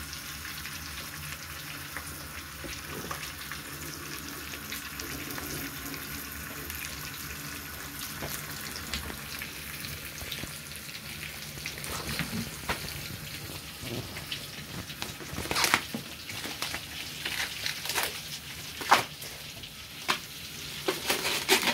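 Rolled meat roast (rollade) sizzling steadily as it browns in oil and butter in a frying pan. In the second half, sharp knocks and rustling of handling cut in over the sizzle.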